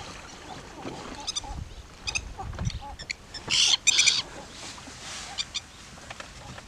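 Birds calling in short, repeated high-pitched bursts, the loudest a little past halfway through.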